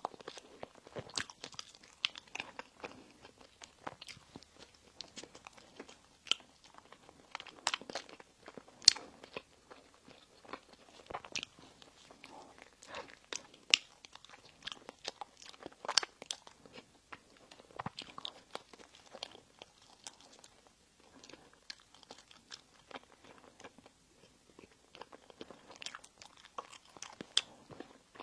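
Close-miked eating sounds: a person biting and chewing bread and pastries, with frequent short crisp crackles and crunches and soft chewing between them.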